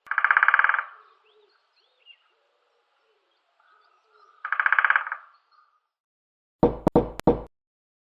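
Woodpecker drumming: two short, very rapid rolls of taps a few seconds apart, with faint bird chirps between them. Near the end come three separate, louder knocks in quick succession, a slow knocking rhythm.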